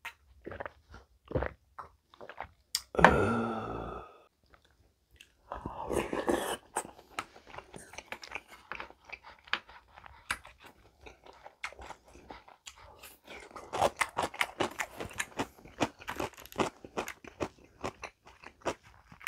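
Close-miked mukbang eating sounds: a swallow of soju with a loud voiced exhale about three seconds in, then steady chewing with crisp crunches and wet mouth clicks.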